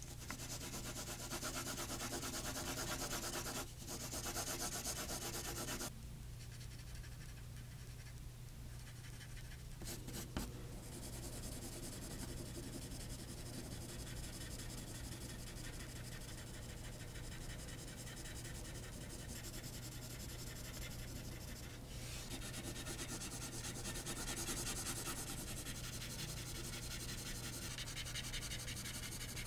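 Graphite pencil shading on paper, continuous scratchy strokes rubbing back and forth. The strokes go softer for a few seconds about a fifth of the way in, and a single tap sounds about a third of the way in.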